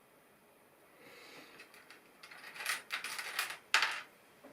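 Loose plastic LEGO pieces clattering and clicking as hands rummage through them. It starts about a second in as a rustle and grows to a run of sharp rattles, the loudest near the end.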